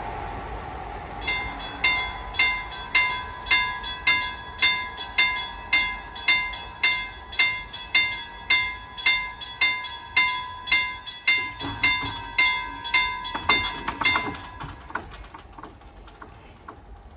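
Swedish level crossing warning bell ringing in a steady rhythm of about two strikes a second, starting about a second in and stopping a few seconds before the end. The rumble of a passing train fades out just before the bell starts.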